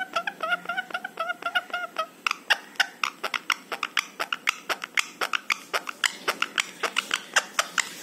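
A rose-ringed parakeet chatters a quick run of short, repeated pitched notes for about two seconds. A rapid series of sharp clicks, several a second, follows and continues to the end.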